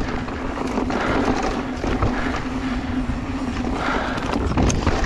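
Electric mountain bike ridden fast over dirt singletrack: tyre noise and clatter from the rough ground, with a steady whine from the pedal-assist motor.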